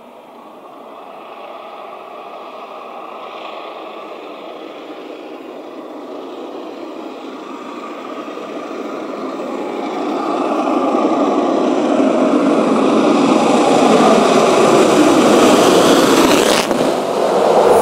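Steam locomotive 60163 Tornado, a three-cylinder Peppercorn A1 Pacific, working hard up a bank with a chimney roar that grows steadily louder as it approaches. It is loudest as it passes close near the end.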